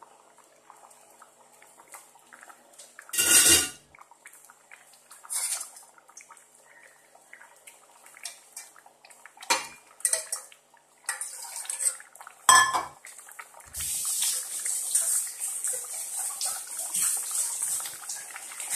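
Stainless steel cookware clattering and clinking, with several sharp metal knocks, the loudest about three seconds in and again near twelve seconds. From about two-thirds of the way through, a steady hiss as the sambar simmers in the open pot.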